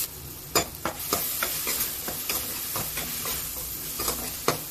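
Finely chopped onions sizzling in hot oil in a kadai while a spoon stirs them, clicking and scraping against the pan at irregular moments, the sharpest clicks about half a second in and near the end.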